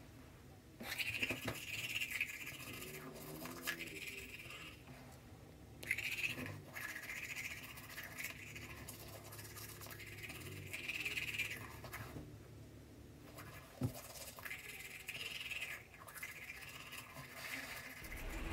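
Manual toothbrush scrubbing teeth in quick back-and-forth strokes, in bouts of a second or two with short pauses between them.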